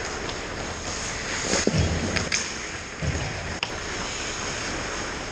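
Ice hockey play on an indoor rink: skates scraping the ice over a steady hiss, with a few sharp stick-and-puck clacks and two dull thumps in the middle.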